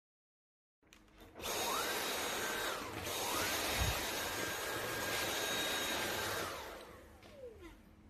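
Dyson cordless stick vacuum with a soft roller floor head running on a tiled floor. Its motor spins up with a rising whine about a second in and runs steadily with a high whine, dipping in pitch briefly around three seconds. A dull knock comes about four seconds in, and near the end the motor spins down with a falling whine.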